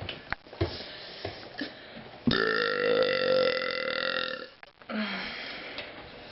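A teenage girl's long, loud belch that starts suddenly about two seconds in and holds a steady pitch for about two seconds.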